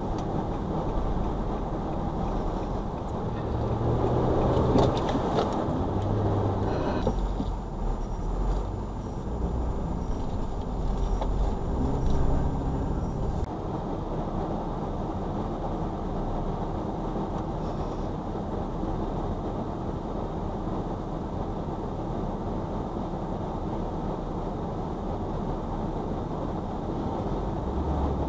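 Car driving on city streets, heard from the dashcam: steady road and tyre noise with a low engine hum. It swells briefly louder about five seconds in.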